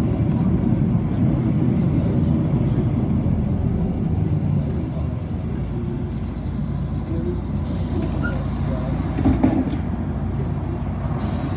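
City bus running, heard from inside: a steady low rumble of engine and road. About eight seconds in a hiss comes in, with a few short knocks.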